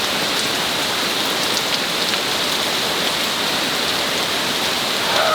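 Heavy rain falling, a steady hiss with a few faint drop ticks.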